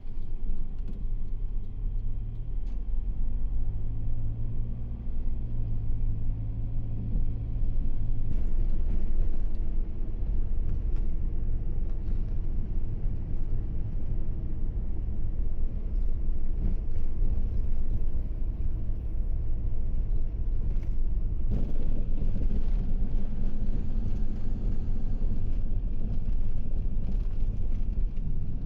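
Motor vehicle running with a steady low road rumble, its engine note shifting in pitch during the first several seconds.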